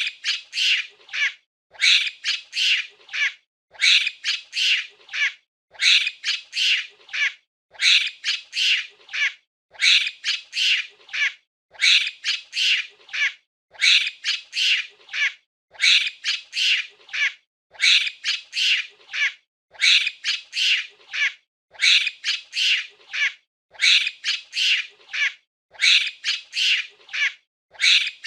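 Monkey giving shrill, squawking calls in short bursts of several calls, the same burst repeating about every two seconds as a looped sound effect.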